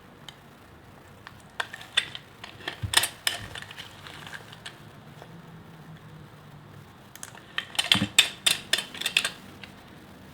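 A knife cutting through a bar of soap into cubes, giving crisp crackling clicks in two runs, the first about a second and a half in and the second near the end.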